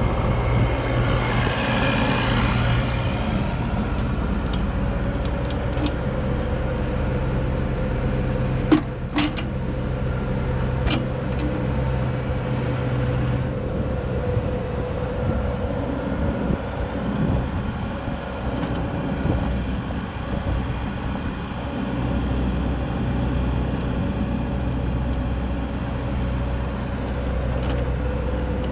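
Caterpillar 304E2 CR mini excavator's diesel engine running steadily, with a few short sharp clicks around nine and eleven seconds in. The engine note shifts slightly about halfway through.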